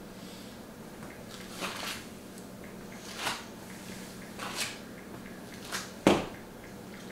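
A person shifting and moving about on their feet: a few short, soft noises, then one sharp knock just after six seconds in, the loudest sound, over a steady low hum.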